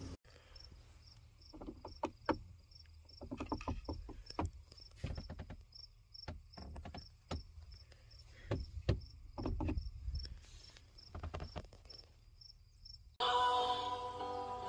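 Cricket chirping steadily, short high chirps about three a second, with scattered knocks over a low rumble. Music with singing comes in near the end.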